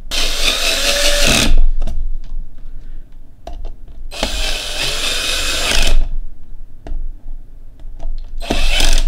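Power screwdriver running in three bursts, driving screws into the soldering station's aluminium enclosure.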